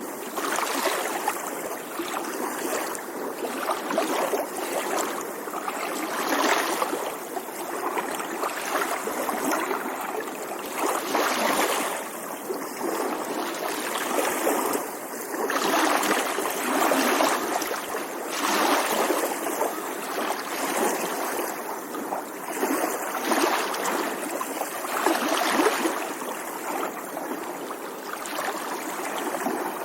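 Small waves lapping against a shore, a continuous splashing wash that swells and eases every few seconds.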